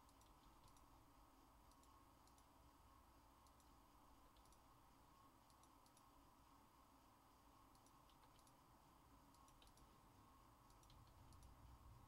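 Near silence: faint, irregular computer mouse and keyboard clicks over a steady low hum.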